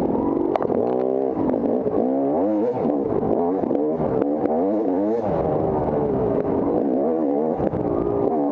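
Off-road motorcycle engine revving up and down again and again as the throttle is worked, with a few sharp clicks and knocks over it.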